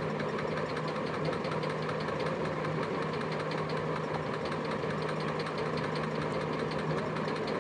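Steady mechanical hum of a small motor running, with a constant low tone and no change in speed.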